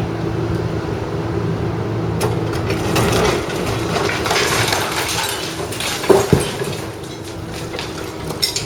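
Building demolition by heavy equipment: concrete and debris crunching and cracking over a running machine, with two sharp loud knocks about six seconds in.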